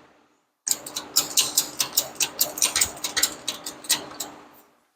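Small metal parts and tools clinking and clattering as someone rummages through them by hand, several sharp clicks a second, stopping near the end.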